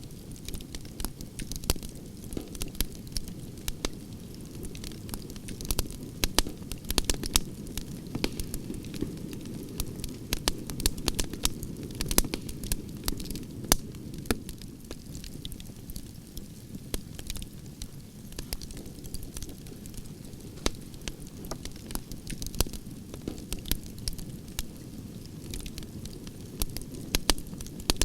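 Campfire of burning logs: a steady low rush of flames with frequent sharp crackles and pops throughout.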